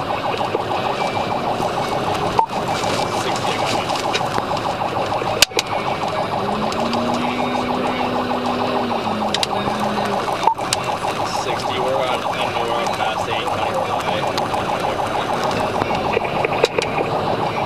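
Police patrol car siren cycling rapidly, heard from inside the pursuing car over road and engine noise. A few sharp knocks are heard, about two and a half, five and a half and ten and a half seconds in.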